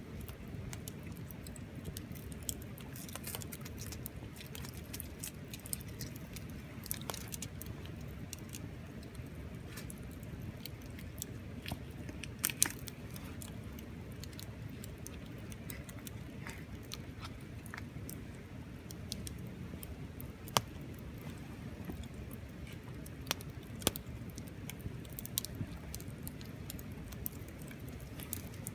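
Wood campfire burning, with irregular small crackles and a few sharper pops from the burning wood over a steady low rumble.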